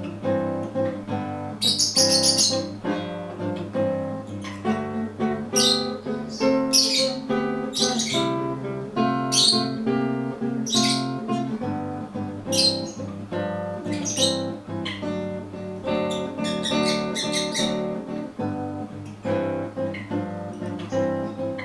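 Acoustic guitar music with plucked and strummed notes. Short high bird chirps come in over it every second or two.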